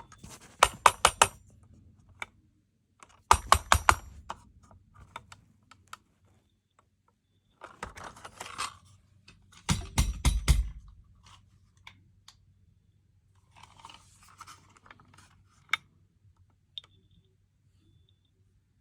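Clusters of rapid sharp plastic clicks and rattles as a 9120B smoke alarm is handled and its test button pressed, several times over. Its malfunctioning piezo sounder gives only a faint high beep, briefly near the start and again near the end, instead of a proper alarm.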